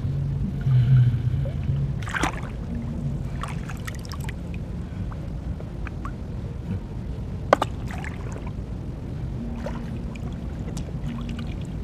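Shallow seawater sloshing and splashing as people wade and dip their hands and a basin, with a few sharp splashes and clicks, over a steady low rumble.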